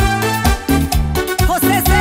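Instrumental cumbia peruana music: steady bass and percussion rhythm with an electronic keyboard playing, and a wavering, bending keyboard line in the second half.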